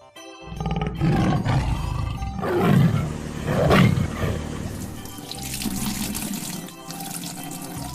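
Tiger roar sound effects, two loud roars about a second apart near the middle, over background music, with a hissing, water-like noise in the last few seconds.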